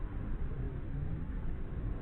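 Low, steady rumbling from a reconstructed Irritator challengeri call, built from anhinga and cormorant vocalizations.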